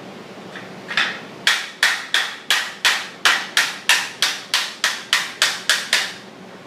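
A hammer tapping sheet-metal plaster ground into place: a quick, even run of about sixteen sharp metallic strikes, roughly three a second, starting about a second in.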